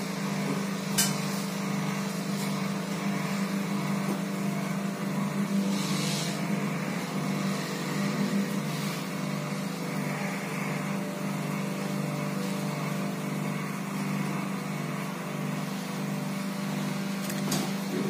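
Steady low electric motor hum with a slight regular pulse, and a few short clicks.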